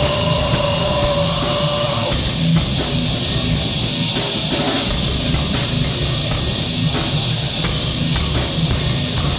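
Live rock band playing loud, with electric guitar and a drum kit, a note held through about the first two seconds.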